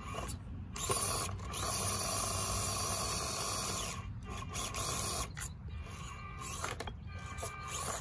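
FMS Atlas 6x6 RC rock crawler's electric motor and geared drivetrain whining and grinding as it crawls over rock, in stop-start bursts that cut out briefly about five times. The jerky on-off running fits the box-stock setup's jumpy throttle with almost no low-speed control.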